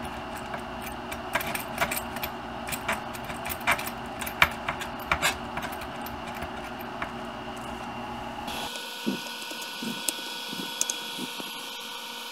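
Small clicks and light rattles of plastic and metal RC truck parts being handled and fitted by hand, over a steady background hum. About two-thirds of the way through, the low hum cuts out suddenly, and fewer, fainter clicks follow.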